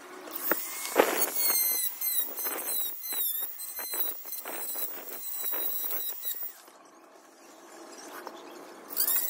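Handheld rotary engraving tool running at high speed with a high-pitched whine, dipping briefly in pitch as it cuts into wood, with scraping clicks. It stops about six and a half seconds in and starts up again near the end.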